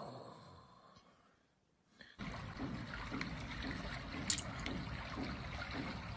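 Water-like trickling and bubbling from a cat fish-game app on a tablet, setting in about two seconds in, with a few sharp taps, one louder, as a cat's paw hits the screen.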